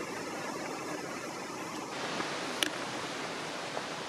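A steady rushing outdoor noise with no clear source, with one short sharp click about two and a half seconds in.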